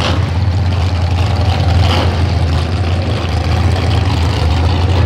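A vehicle engine idling nearby: a steady, loud low rumble.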